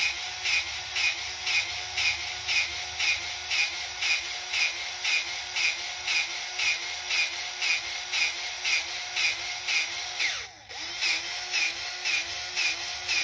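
Powered grease gun running, pumping grease into a mower front-wheel hub's grease zerk with an even pulse of about three strokes a second. It pauses briefly about ten seconds in and stops at the end.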